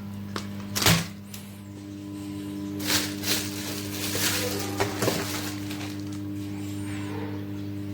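A steady low electrical hum with a handful of sharp clinks and knocks: one loud knock about a second in, then a cluster between three and five seconds.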